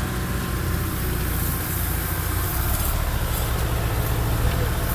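Engine running steadily with a low, even drone as a small farm tractor tows a stuck 4x4 out of the mud on a strap.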